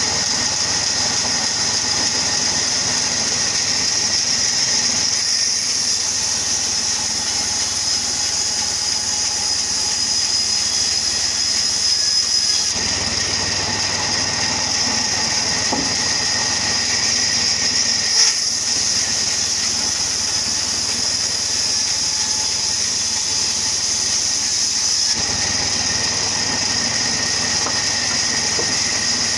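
Wood-cutting machine running steadily with a loud, high-pitched mechanical whine and hiss, changing abruptly in tone a few times, with a brief louder moment partway through.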